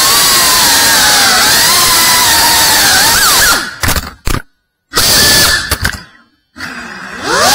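A 3.5-inch cinewhoop FPV drone's brushless motors and propellers whine, the pitch bending up and down with throttle. About halfway through the sound cuts out twice, briefly each time. Near the end it comes back with a steeply rising whine as the motors spool up.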